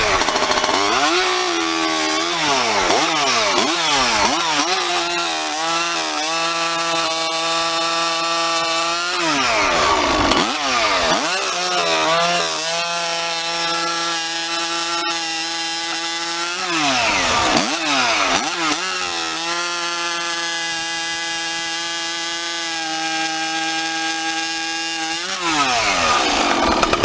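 Farmertec G372 two-stroke chainsaw with a tuned expansion-chamber exhaust pipe, revved up and down a few times, then making three cuts in wood: each time the engine holds a steady high pitch under load and falls away as the cut ends.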